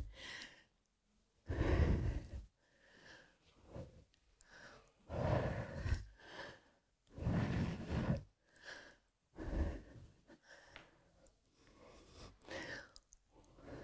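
A woman breathing audibly while swinging her arms around her body in a warm-up exercise, with breathy exhales about every two seconds.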